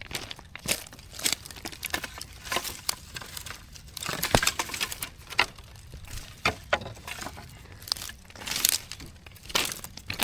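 Dry twigs and leaf litter crunching and snapping underfoot and in the hands while firewood is gathered: irregular crackles with a sharp snap about four seconds in.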